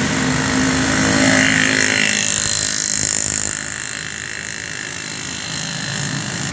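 Road traffic passing close by: a steady mix of engine and tyre noise from passing vehicles, loudest in the first couple of seconds and easing off after the middle.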